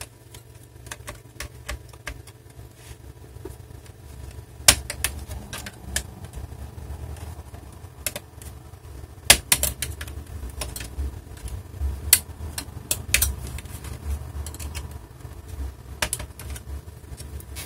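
Plastic snap clips of a Dell Inspiron 14z laptop case clicking and popping loose as the top case is pried off the bottom case, with a low handling rumble underneath. The clicks come irregularly, the sharpest about five and nine seconds in.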